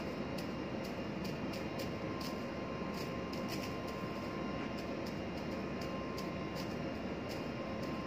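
Steady drone of a ship's machinery with a faint steady hum in it, overlaid by light irregular clicks, about two or three a second.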